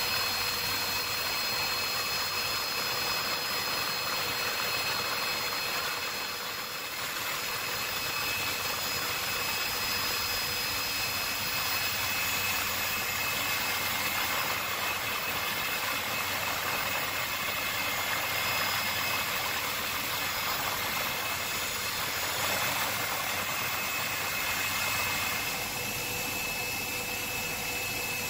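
Steady engine noise of the aircraft the footage is shot from, with a constant high-pitched whine over a rushing hiss, dipping briefly about six seconds in.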